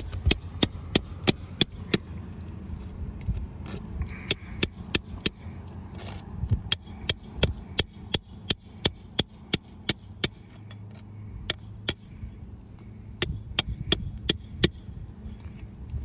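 Sharp metal taps and knocks, about two or three a second, as a flat pry bar is worked under asphalt three-tab shingles to break their seal.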